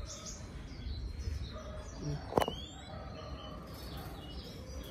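Faint scattered bird chirps over a low rumble, with one sharp click about halfway through followed at once by a short rising chirp.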